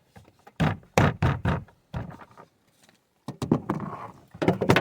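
Plastic door trim on a pickup's rear door being pressed and tapped into place: a run of about five sharp knocks in the first couple of seconds, then a quicker cluster of clicks and knocks near the end.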